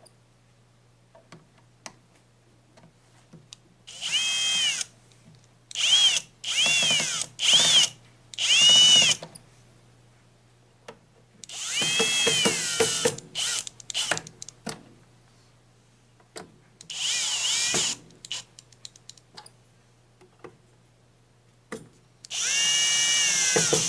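Electric drill driving screws into an air fryer's plastic housing in about eight short runs. The motor whine swells and falls in pitch with each trigger pull, with small clicks between runs.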